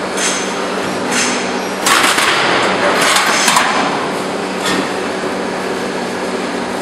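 Glazed tile roll forming machine running with a steady hum, with irregular metallic clanks and rattles as the steel roofing sheet is formed; the clatter is loudest about two seconds in, with more strikes a second later and again near the end.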